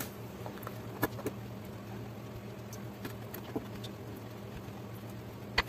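A few soft taps and clicks as a potato roll is dipped in beaten egg and pressed into breadcrumbs on a plate, over a steady low hum.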